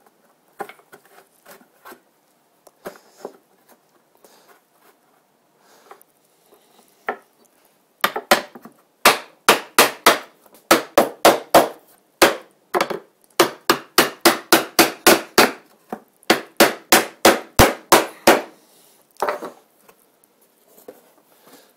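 Hammer tapping a glued wooden side rail down into the groove of a beehive bottom board: a few single knocks, then runs of quick sharp taps, about three or four a second, for some ten seconds. The boards are slightly warped and need to be driven into the tight groove.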